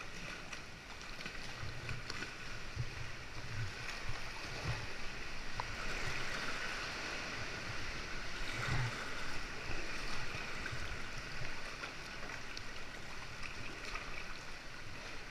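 Sea water sloshing and gurgling around a kayak, with occasional low thumps.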